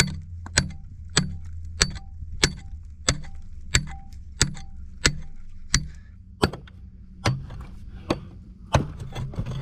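Steel pickaxe striking rock and stony ground in a steady rhythm, about fifteen blows at roughly three every two seconds. Each blow is a sharp clink with a short metallic ring.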